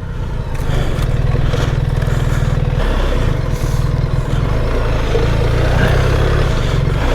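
BMW R 1300 GS Adventure's boxer-twin engine running under load as the bike is ridden through sand, with a brief easing of the throttle about three seconds in.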